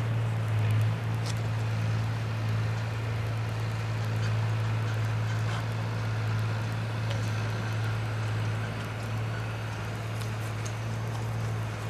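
A steady low hum that doesn't change, over a faint hiss, with a few light scattered clicks.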